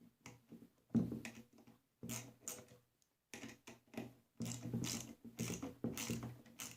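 M5 bolts being tightened with a hand tool: short, irregular bursts of mechanical clicking and metal rattling, with brief pauses between strokes.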